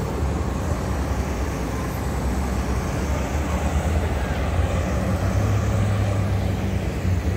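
Street traffic: vehicle engines running with a low drone, which grows louder for a couple of seconds past the middle as a car drives by.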